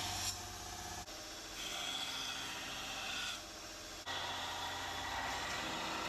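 Belt sander running with a Damascus steel knife blade ground against its 40-grit belt to clean up the profile. The grinding sound changes as the blade is pressed on and eased off, about a second in, near two seconds, past three seconds and again about four seconds in.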